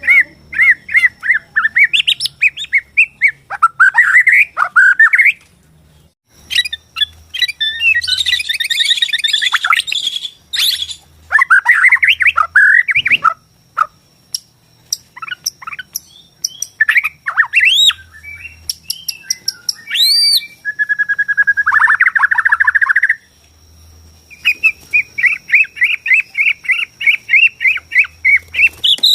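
Bornean murai batu (white-rumped shama) singing a varied, loud song: whistled phrases, chattering trills and sweeping notes, broken by short pauses, ending in a fast run of repeated notes.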